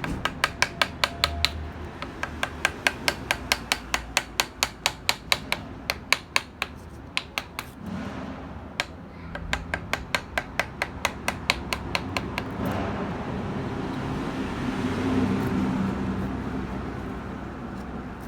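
Wooden mallet tapping a carving chisel into chestnut wood in quick, even strikes, about four a second, in two runs with a short pause between. Near the end the tapping stops and a steady rushing noise takes over.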